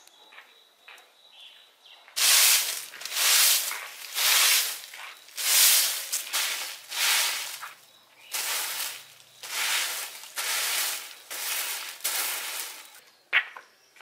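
Straw broom sweeping dry leaves across a concrete yard: about a dozen swishing strokes, roughly one a second. A sharp knock follows near the end.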